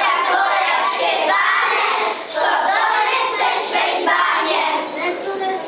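A group of children singing a Czech Christmas carol together.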